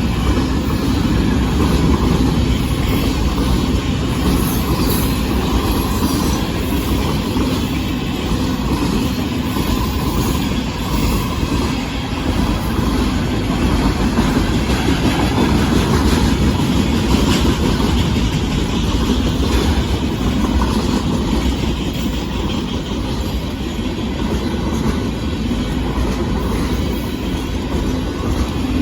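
Union Pacific military freight train rolling past, its cars loaded with tanks: a steady, loud noise of steel wheels running on the rails, with no horn.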